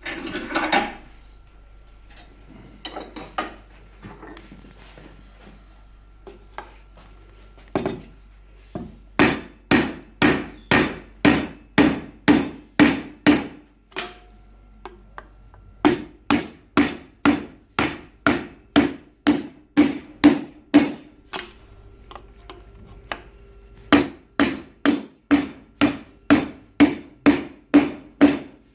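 Hammer striking a steel chisel driven between spot-welded steel sheets, ringing metallic blows at about two a second in three runs with short pauses, after a clatter and a few light taps at the start. It is a chisel test of the spot welds, forcing the sheets apart at the weld nuggets.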